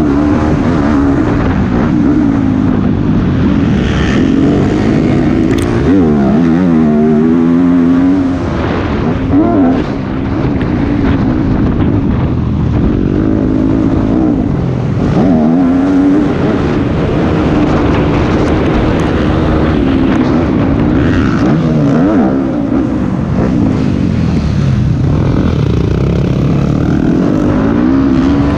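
Motocross bike engine recorded onboard during a race-track lap, its pitch rising and falling again and again as the throttle is opened and shut, with brief drops in loudness about eight and ten seconds in.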